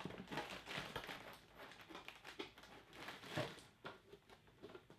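Plastic protector and cardboard packaging being handled, with irregular crinkles and rustles; the loudest crinkle comes about three and a half seconds in.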